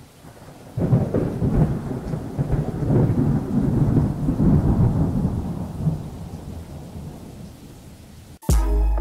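Thunder rolling over heavy rain. A low rumble builds about a second in and slowly dies away, with a rain hiss throughout. Electronic music with a beat cuts in abruptly near the end.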